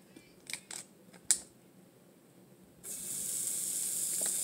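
A few light clicks and knocks, then about three seconds in a pat of butter hits the hot flat-top griddle and starts sizzling, a steady hiss that slowly grows louder.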